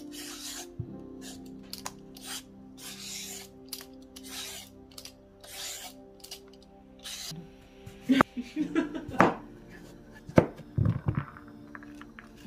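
Vegetable peeler scraping the skin off an unripe green papaya in a steady series of short rasping strokes, over soft background music. About eight seconds in, a few sharp knocks and scrapes on the cutting board as the papaya is opened and its seeds scooped out.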